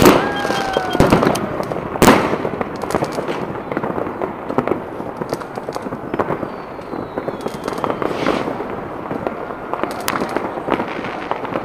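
Many fireworks and firecrackers going off at once: a dense, overlapping run of bangs and pops over continuous crackling. The loudest bang comes about two seconds in.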